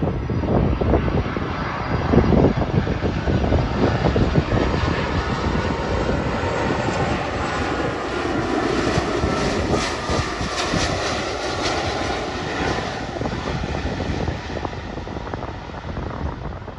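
Airbus A330-343 airliner's Rolls-Royce Trent 700 turbofans on landing approach: a continuous jet roar. A higher whine comes up about halfway through as the jet passes, then fades toward the end as it reaches the runway.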